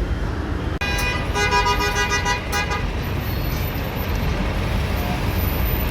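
A vehicle horn sounding one steady blast of about two seconds, starting sharply about a second in, over the low rumble of traffic and engines.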